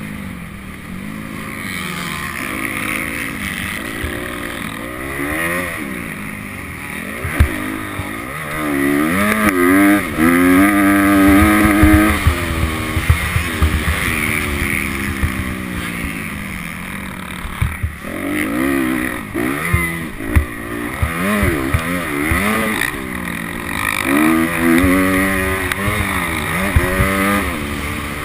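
Honda CRF250R's single-cylinder four-stroke engine, recorded from a camera on the bike, revving up and dropping off again and again as the throttle is worked through the track's sections. A few sharp knocks stand out over the engine.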